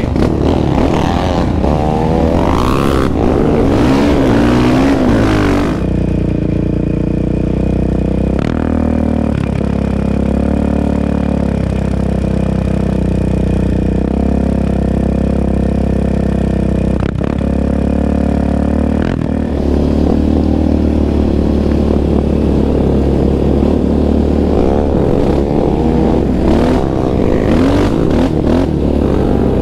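Yamaha Raptor 700R's single-cylinder engine running hard as the quad is ridden along a dirt trail, its pitch rising and falling with the throttle. From about 6 to 19 seconds a quad engine holds a steadier pitch instead.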